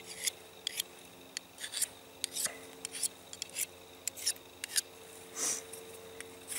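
A Victorinox Dual Sharpener drawn in short strokes along the edge of a Frost 162 knife, resharpening the blade: about fifteen quick, high scrapes at an uneven pace, with one longer stroke near the end, over a faint steady hum.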